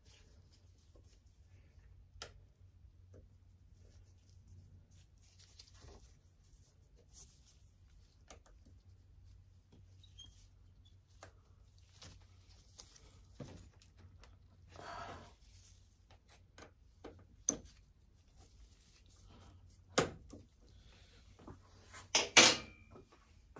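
Scattered light clicks and knocks of hand tools and metal parts being handled at a motorcycle's handlebar and brake lever, with a short rustle about two thirds of the way through. Near the end comes a louder quick clatter of metal on metal that rings briefly, the loudest sound here.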